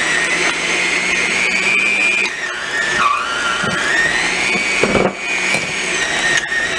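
Toastmaster electric hand mixer running steadily, its beaters creaming butter, brown and white sugar and eggs in a glass bowl. The motor's whine drops in pitch briefly about three seconds in, then recovers.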